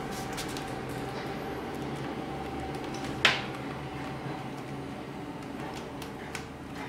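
Steady low room hum with scattered faint clicks and one sharp knock a little over three seconds in.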